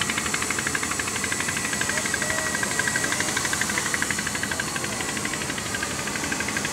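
Electric motors and propellers of a T380 quadcopter in flight, a steady whirring buzz with a fast, even flutter.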